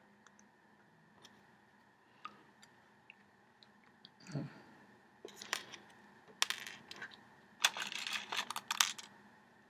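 Small clicks and rattles of jumper wires and components being handled on a breadboard, scattered at first, then in dense clusters over the last few seconds.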